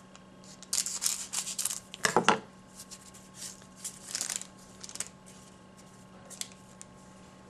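Scissors cutting open a foil trading-card pack: a quick run of sharp snips and crackles of the wrapper from about a second in, then softer, sparser crinkling of the foil as the cards are drawn out.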